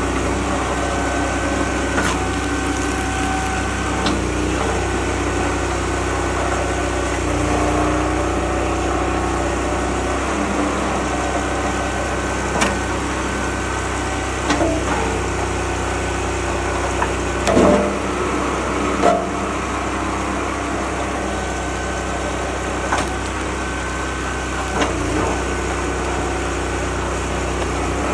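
Small gasoline engine of a homemade hydraulic log splitter running steadily, with several sharp cracks of oak blocks splitting on the wedge. The loudest cracks come a little past the middle.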